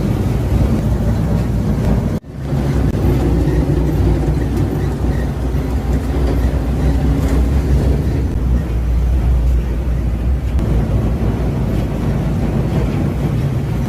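Industrial hydraulic single-shaft shredder running and shredding waste: a loud, steady low rumble with a gritty grinding noise over it, broken off briefly about two seconds in.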